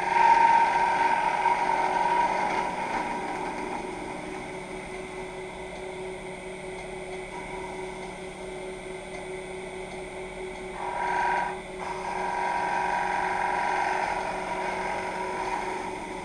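Wood lathe running with a steady hum while a freshly sharpened detail gouge cuts a spinning pine blank, the cutting noise swelling and easing over several passes, with a short louder cut about eleven seconds in.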